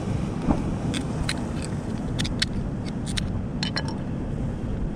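A rock striking a small seashell to crush it for bait: a string of sharp, irregular clicks and knocks over a steady low rumble.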